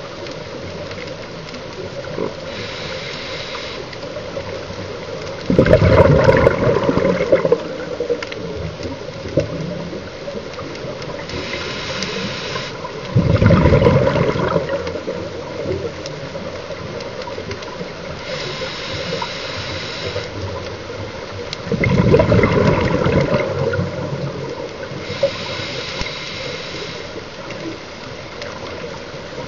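Scuba regulator breathing heard underwater: a short hissing inhale, then a louder rush of exhaled bubbles, repeating about every eight seconds for three full breaths plus a final inhale.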